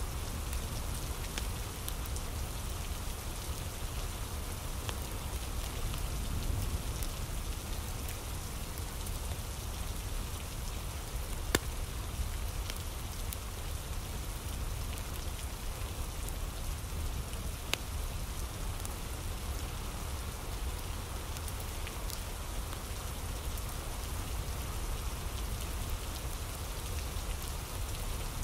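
Steady rain ambience: an even hiss of falling rain with a low rumble underneath, and a couple of sharp clicks near the middle.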